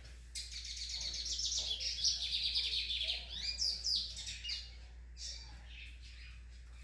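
A seedeater songbird singing: a fast, high-pitched run of trilled chirps that begins about half a second in, with a few quick up-and-down slurred notes in the middle, then breaks off after about four seconds into a couple of fainter notes.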